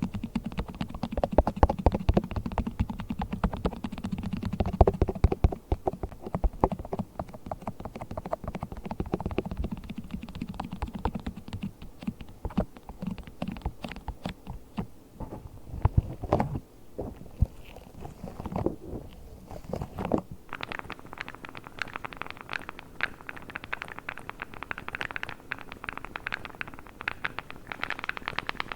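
Yellow rubber gloves rubbing and squeaking close to the microphone in a dense run of quick rubs and crackles. About twenty seconds in the texture changes to a lighter, higher crackling as a blue plastic massage tool is handled.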